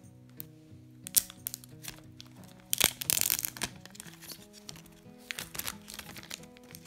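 Tear-off seal strips on an iPhone 12 mini box being pulled off by hand: short crinkling and tearing in a few bursts, the longest and loudest about three seconds in, over soft background music.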